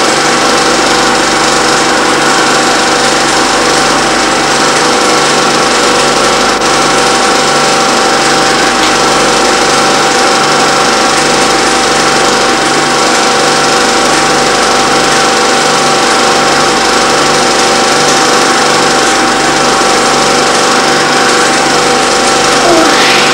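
Film projector running: a steady mechanical whir with a few constant tones and an even, repeating pulse underneath.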